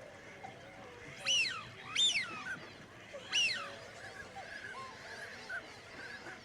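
A large bird gives three loud calls, each a quick rise then fall in pitch, over faint chirping of other birds in the background.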